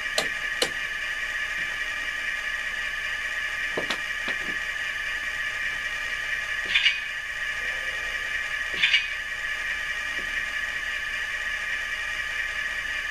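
Sound decoder in an HO-scale Athearn GP38 model diesel locomotive playing its engine idle through a small, bass-poor test speaker: a steady, tinny hum. A few sharp clicks and two short brighter bursts break through it.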